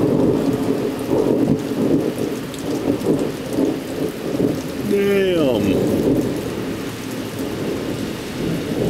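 Thunder rumbling continuously over heavy rain falling on wet pavement. A short pitched sound glides steeply downward about halfway through.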